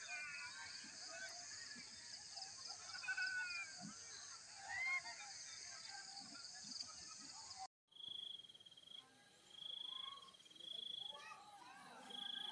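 Insects chirring steadily with scattered bird calls. The sound cuts out briefly about eight seconds in, after which a high insect trill repeats in bouts of about a second, with faint voices near the end.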